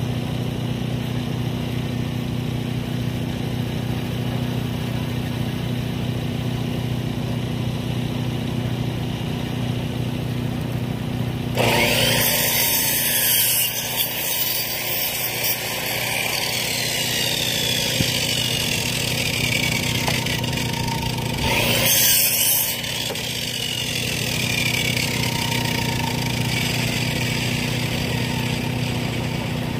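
Small gasoline engine on a portable bandsaw mill idling steadily. Two louder stretches of harsh noise break in over it, one about twelve seconds in lasting some four seconds and a shorter one a little after twenty seconds in.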